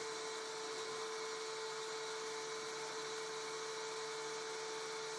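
Desktop CNC wax mill's spindle running with a steady whine as a 0.5 mm end mill cuts a wax ring shank on the rotary attachment.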